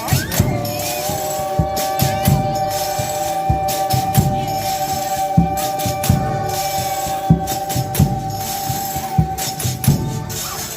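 Folia de Reis music: a single long held note, steady in pitch for about nine seconds, over tambourine jingles and regular drum strokes, stopping shortly before the end.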